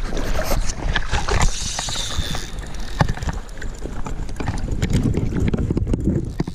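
River water sloshing and splashing around a wading angler playing a hooked salmon on a bent fly rod, with wind rumbling on the microphone and scattered knocks and clicks.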